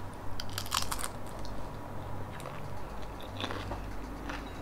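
Close-miked chewing of crisp fried dynamite lumpia: crunchy bites and chews come in clusters, thickest about a second in, over a steady low electrical hum.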